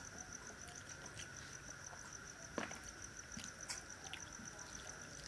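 A cricket chirping steadily in rapid even pulses, with soft wet clicks and smacks from rice and curry being mixed by hand and eaten, the most distinct a little past halfway.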